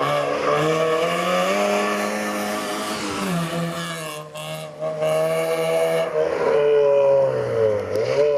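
Fiat Seicento rally car's engine revving hard, its pitch climbing and falling as the driver shifts gear and lifts off the throttle through a chicane. The engine note drops briefly about four seconds in, then climbs again.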